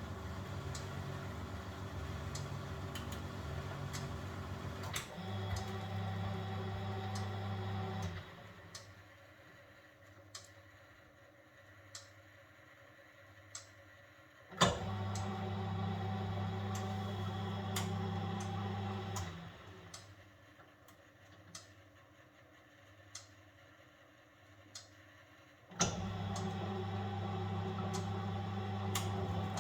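1971 Constructa Garant 491 washing machine in its wash cycle: the motor runs the drum for about five seconds at a time, stops for about six, and starts again with a sharp click, twice. Light ticks come about every second and a half during each stop.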